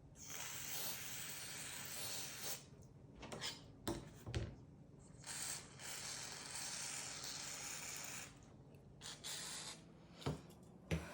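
Steel knife blade scraped against an abrasive in two long, even strokes, with light clicks and knocks of handling between them.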